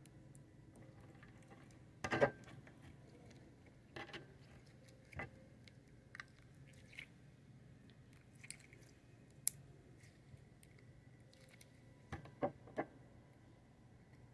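Orange putty slime squeezed, kneaded and pulled apart by hand, giving scattered short wet squelches and sticky clicks. The loudest comes about two seconds in, with a quick cluster of three near the end, over a faint steady low hum.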